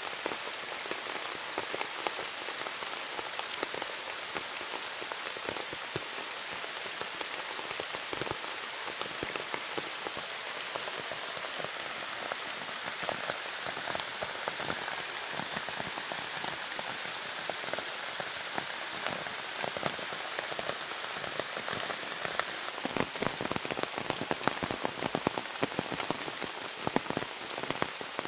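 Steady rain falling and pattering on a surface, a constant hiss with countless individual drop strikes; the drops hit harder and more often in the last few seconds.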